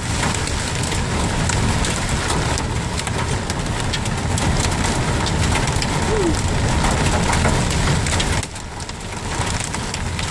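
Hailstorm with heavy rain: a steady downpour hiss full of sharp ticks of hailstones striking, easing somewhat a little after 8 seconds in.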